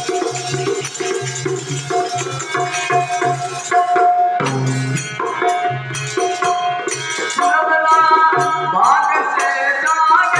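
Instrumental passage of a devotional folk bhajan: harmonium melody over dholak drum beats and jingling hand percussion, with a rising melodic glide near the end.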